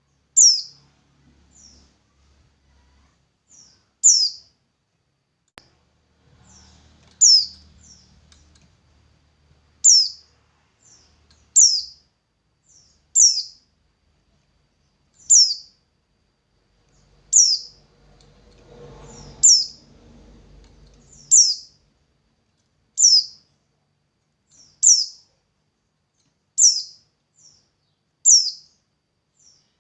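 A small songbird chirping: single high, sharp chirps that drop quickly in pitch, repeated steadily every one to two seconds, most with a fainter short note just after.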